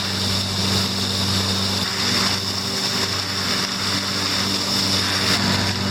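Heavy rain pouring down in a steady hiss, with a steady low hum underneath.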